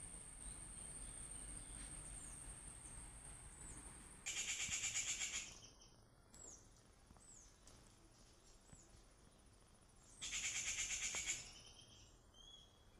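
Outdoor garden ambience of birds and insects: a thin, steady high insect whine that stops about four seconds in, then two loud, rapid trills about six seconds apart, with small high chirps in between.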